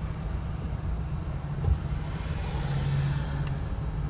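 A steady low engine drone, its hum growing stronger for about a second from two and a half seconds in, with a single thump near the two-second mark.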